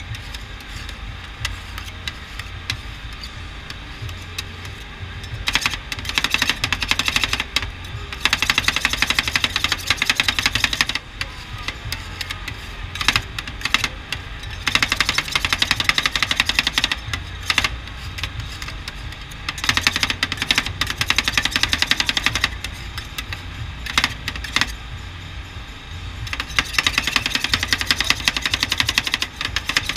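Metal spatulas rapidly chopping and scraping on the frozen steel pan of a rolled ice cream stand. The fast clatter comes in bursts of several seconds each, with short pauses between them.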